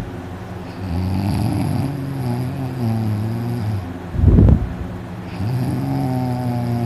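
A person snoring loudly in their sleep: long, steady, low-pitched droning snores, broken about four seconds in by a brief loud burst of breath. The sleeper puts the snoring down to a very relaxed throat.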